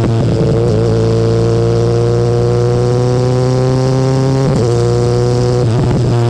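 BMW S1000R inline-four engine heard through its stock Akrapovic exhaust while riding. The engine note climbs slowly and steadily, and it is briefly interrupted, dipping and picking up again, about four and a half seconds in and near the end.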